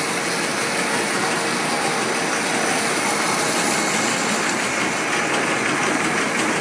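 Core-filled snack extruder line running: a steady mechanical whirring noise from its motors, forming rollers and cutter, with a few faint steady tones.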